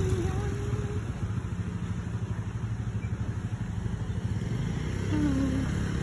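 A motor vehicle engine running at low revs close by: a steady low rumble, in street traffic.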